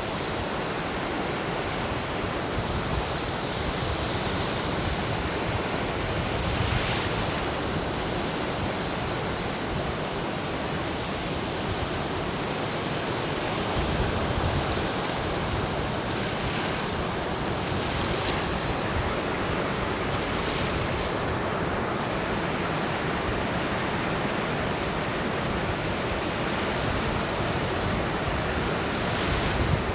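Lake Michigan waves washing onto a sandy beach in a steady surf, with wind, and a few slightly louder swells as waves break.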